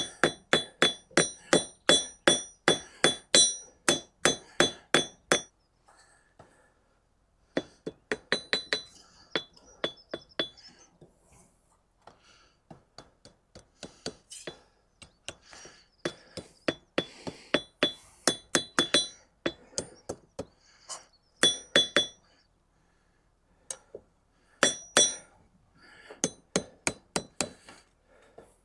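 Hand hammer striking hot steel from an old file on a small anvil, in runs of quick blows about three a second with short pauses between, each blow ringing with a bright metallic tone.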